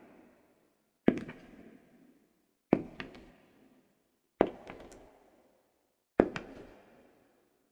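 Leather-soled shoes walking slowly on a soft wooden floor: four footsteps about 1.7 seconds apart, each a sharp heel strike followed by a lighter second tap, with a short ringing decay.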